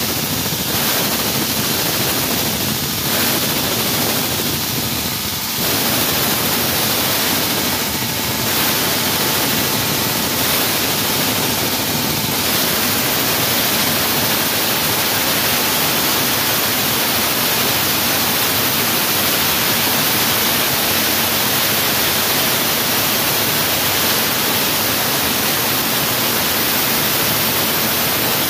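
Wall saw cutting through a wall: a loud, steady grinding hiss, dipping briefly a few times in the first dozen seconds, then running on without a break.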